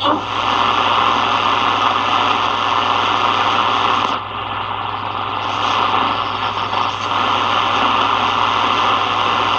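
Shortwave static hissing from a Sony ICF-7601 portable radio's speaker as the dial is tuned between stations, over a steady low hum. The hiss dips briefly about four seconds in.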